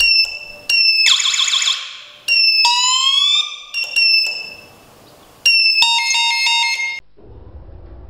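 Electronic multi-tone alarm buzzer of a homemade laser security alarm going off in short bursts that start and stop abruptly, triggered each time the laser beam to its light sensor is broken: beeps with a falling tail, a warbling siren, a rising whoop and a steady multi-tone. It cuts off about seven seconds in.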